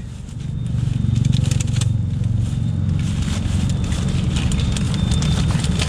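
Thin plastic carrier bag and newspaper wrapping crinkling and rustling as a packet is pulled out and handled, a run of small crackles over a steady low rumble.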